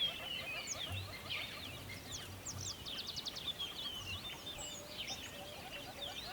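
A chorus of several songbirds singing and calling at once, with overlapping chirps, quick trills and rising and falling whistles, over a faint steady hiss of running river water.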